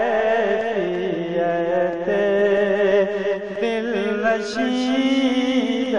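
Male voices singing a naat without instruments, in long held notes that waver and glide in pitch.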